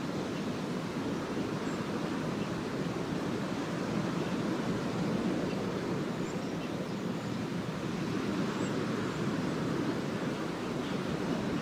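Small lake waves washing steadily onto the beach, a continuous low rushing wash with no single loud break.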